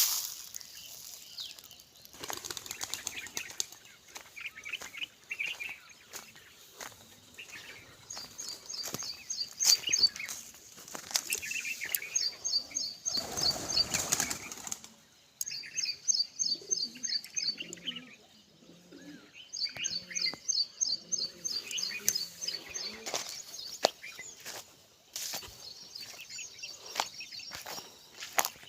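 Birds outdoors: chirps and repeated short trains of rapid, high-pitched ticking, each lasting a second or two, with scattered clicks and a louder rustling burst about halfway through.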